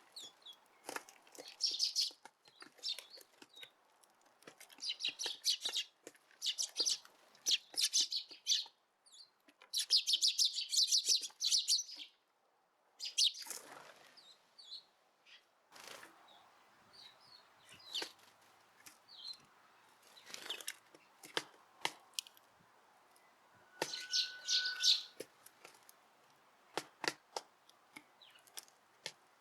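Eurasian tree sparrows chirping in repeated quick bursts, with scattered short clicks and taps between the bursts.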